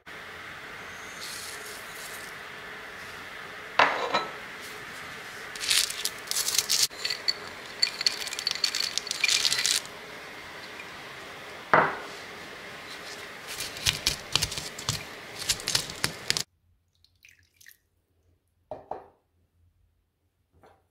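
Stone pestle working in a stone mortar (cobek and ulekan), crushing chilies, garlic and fried peanuts. There are two sharp knocks of stone on stone and runs of crunching and crackling as the peanuts break up. Near the end only a few faint scrapes remain.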